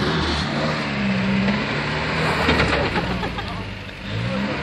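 Series Land Rover engine working under load as the vehicle crawls through a muddy rut, its note held steady, dipping about four seconds in and then rising again as it revs.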